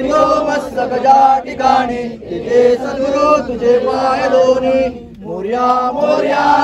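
A group of voices chanting a devotional aarti to Ganesh in unison, in sung phrases that dip briefly about five seconds in.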